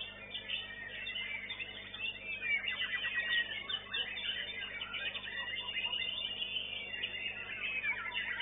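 White-rumped shama (murai batu) singing a dense, unbroken stream of rapid whistles, trills and chattering notes, overlapping with other caged songbirds.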